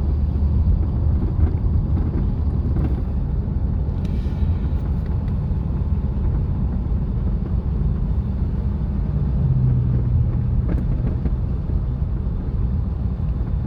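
2000 Camaro Z28's LS1 V8 running steadily with a low rumble while the car is driven, on a fuel pump that the owner suspects is starving it for fuel pressure. A steadier, louder engine note comes in for a couple of seconds about two-thirds of the way through.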